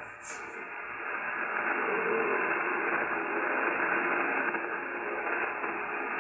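Shortwave receiver tuned to 7200 kHz giving out a steady rush of hiss-like noise through its narrow single-sideband audio. The noise grows louder over the first couple of seconds, then holds.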